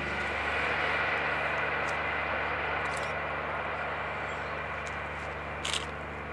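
Class 55 Deltic diesel locomotive's twin Napier Deltic engines droning steadily as it hauls a passenger train, with a brief high chirp near the end.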